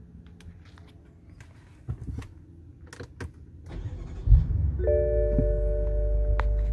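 BMW twin-turbo V8 being started: a few clicks in the cabin, then the engine cranks and fires about four seconds in with a loud thump and settles into a steady low idle. Shortly after, a steady electronic chime tone from the car sounds over the idle.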